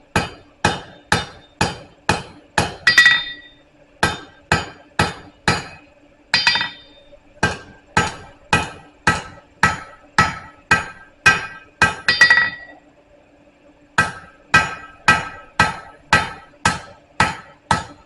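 Hand hammer striking hot steel on an anvil, about two blows a second in runs broken by pauses of a second or so, while a tapered bar is forged into an octagon section; several runs end in a louder, ringing blow. A steady low hum runs underneath.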